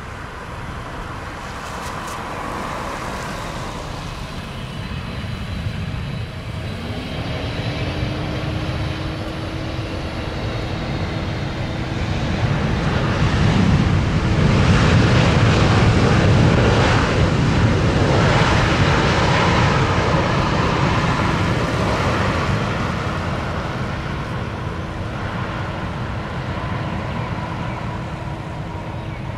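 Boeing 777-300ER's GE90 turbofans on landing: a steady jet roar with a whine that climbs in pitch about six seconds in and then holds. The roar swells to its loudest just after touchdown as reverse thrust is applied, then eases off through the rollout.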